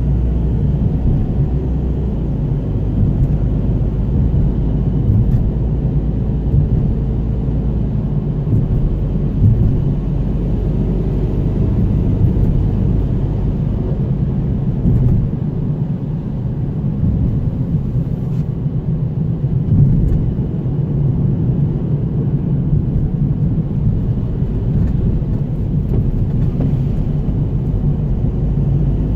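Steady road and engine rumble of a vehicle driving on wet asphalt, heard from inside the cabin; the deepest part of the rumble eases a little around the middle.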